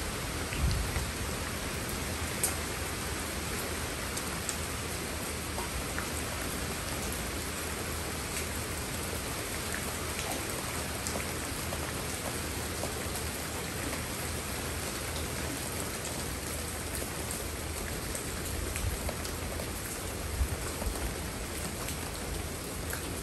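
Steady rain falling on leafy ground plants: an even hiss with scattered individual drops ticking on the leaves. A few soft low thumps come about a second in and again near the end.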